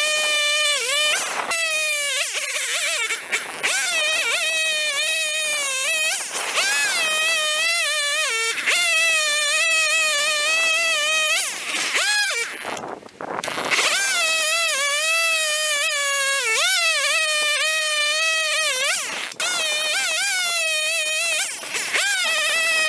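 Husqvarna two-stroke chainsaw running at full throttle, cutting through a stack of frozen oak logs, its pitch sagging and rising as the chain works through the wood. The level drops briefly several times as the throttle comes off between cuts, the longest gap about halfway through.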